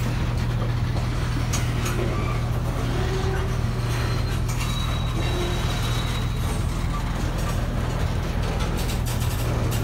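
Covered hopper cars of a freight train rolling past: a steady rumble of steel wheels on rail, with scattered clicks and clanks from the wheels and couplers.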